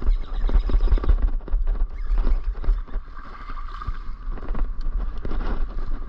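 Wind rumbling on the microphone, with irregular knocks and rattles from handling gear on a kayak.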